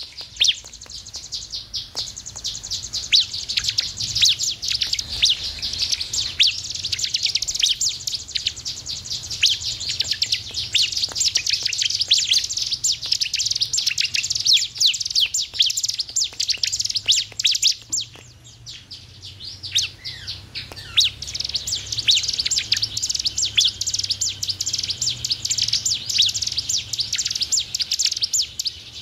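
Ciblek (bar-winged prinia) singing a long, rapid, high-pitched run of chirps and trills, with a brief lull about two-thirds of the way through.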